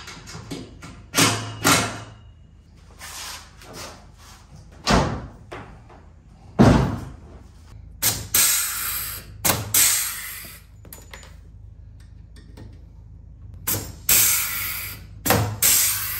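Hand-held pneumatic tool on an air hose driving bolts on a golf cart's seat frame in a series of short bursts, each with a high hiss of air. There are two heavy thumps about five and seven seconds in.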